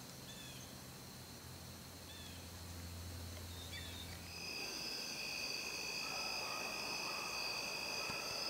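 Insects trilling steadily, a high, continuous chorus that sets in about halfway. Before it there are a few short chirps and a low hum.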